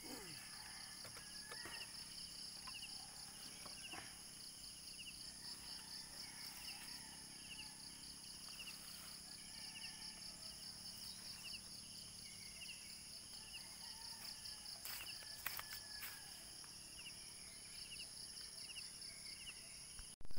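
Insects chorusing: a steady, fast-pulsing high trill with a second steady high whine over it, and a shorter chirp repeating about once a second. A few faint clicks come through, most clearly about three quarters of the way in.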